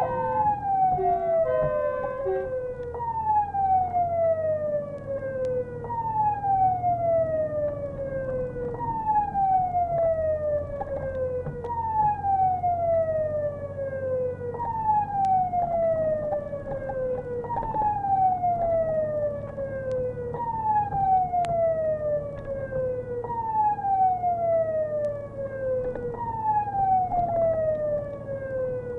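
Fire engine siren heard from inside the moving vehicle, with a steady engine drone underneath. After a brief choppy two-tone pattern at the very start, it settles into a repeating wail that falls from high to low and jumps back up about every three seconds.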